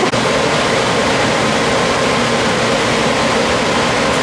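Steady, loud rushing of air from a large fan or blower, with a faint steady hum in it.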